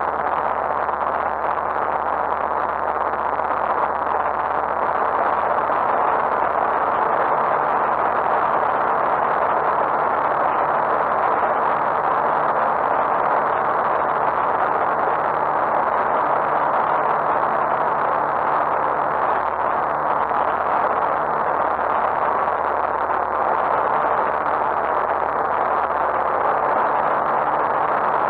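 Lightwing GR912 light aircraft in flight, its Rotax 912 engine and propeller droning steadily under heavy air noise, heard from inside the cockpit. It grows a little louder about five seconds in.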